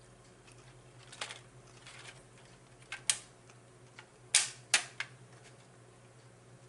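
Small plastic sauce cup being handled and opened: a few sharp plastic clicks and crackles, the two loudest half a second apart a little past halfway.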